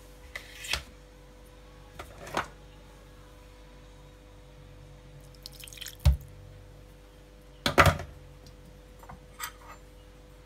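A short pour of water into a glass dish about halfway through, among a few sharp knocks and clinks as the dish is handled. A steady faint hum runs underneath.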